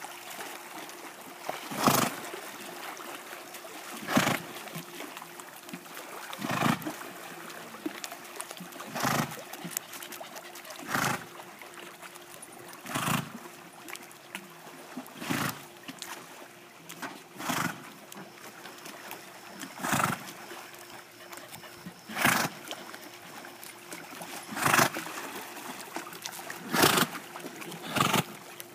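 A swimming horse blowing hard through its nostrils, a loud snort-like breath about every two seconds in a steady rhythm, the hard breathing of a horse working in the water. A faint steady hum runs underneath.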